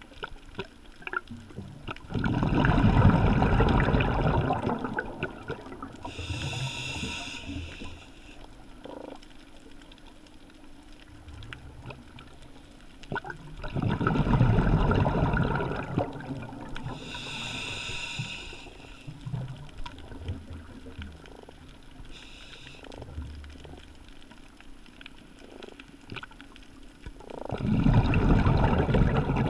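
Scuba diver breathing through a regulator, heard through the camera's underwater housing: three loud rushes of exhaled bubbles about twelve seconds apart, the first about two seconds in, with a quieter, whistling hiss of inhalation a few seconds after each of the first two.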